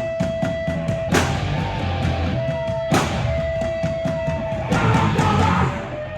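A live heavy rock band playing loudly: distorted electric guitar holding a long sustained note over bass and drums, with cymbal crashes about a second in, at about three seconds, and again near the end, where a dense crash wash rings out.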